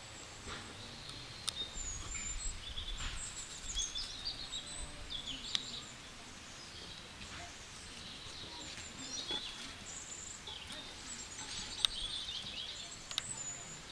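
Small birds chirping and twittering in short, quick calls, over a steady background hiss, with a few sharp clicks.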